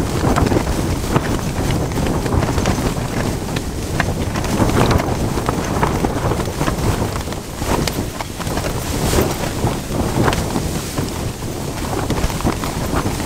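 Storm wind buffeting a tent, heard from inside: a loud, continuous rush with the tent fabric flapping and snapping sharply over and over.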